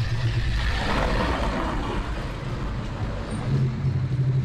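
Road traffic going past, with a vehicle passing about a second in over a steady low rumble.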